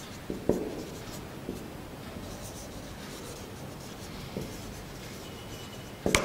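Dry-erase marker writing on a whiteboard: faint scratching strokes with small ticks. A sharp tap comes near the end.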